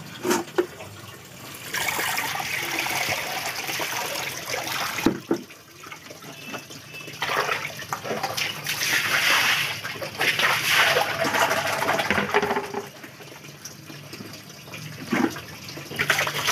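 Water pouring and sloshing in a plastic basin as vegetables are rinsed, coming in several gushes of a few seconds with quieter pauses between them, and a few sharp knocks.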